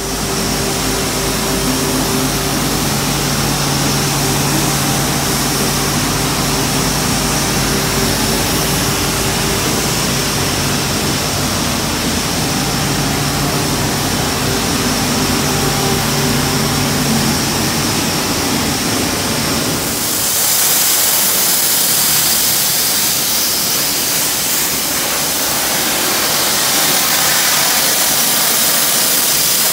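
Sandblasting equipment running: a steady engine-like drone under a hiss, and about two-thirds of the way through the hiss turns louder and brighter as the abrasive blast sprays.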